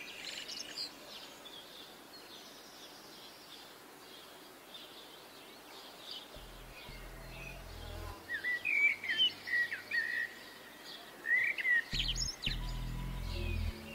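Birds chirping and calling in short whistled glides, sparse at first and busier in the second half. A low droning music note comes in twice, in the middle and again near the end.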